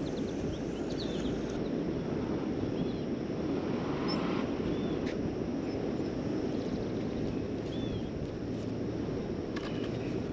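Steady outdoor noise at a riverbank, with a few short, high bird chirps scattered through it.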